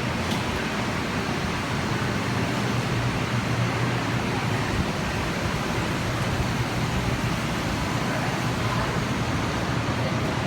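Steady running noise inside a Shinkansen bullet train car at speed: an even rush with a low hum underneath.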